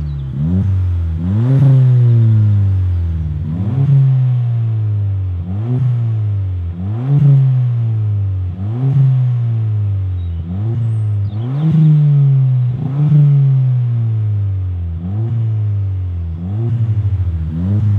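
Ford Fiesta ST180's turbocharged 1.6-litre four-cylinder engine revved over and over through a Cobra Sport 3-inch resonated stainless steel cat-back exhaust. The throttle is blipped about every second and a half, and each time the revs shoot up and then fall away more slowly.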